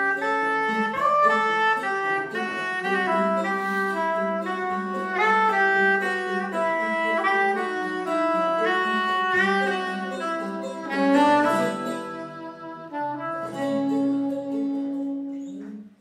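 Soprano saxophone playing a slow melody, note by note, over a long-necked saz (bağlama) accompaniment, the music fading near the end.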